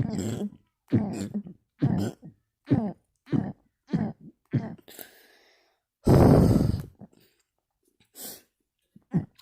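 A man belching repeatedly with his mouth closed: a quick run of short burps, about one every half to one second, then a longer, louder one about six seconds in, and a couple more short ones near the end.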